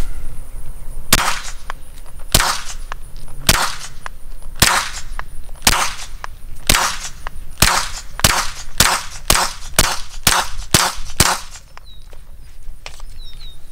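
Walther PPQ 9mm pistol with a Rugged Obsidian 9 suppressor firing about fourteen suppressed shots, at first about one a second, then quicker at about two a second, stopping a couple of seconds before the end. Each shot is pretty quiet and hearing safe, with an echo trailing after it.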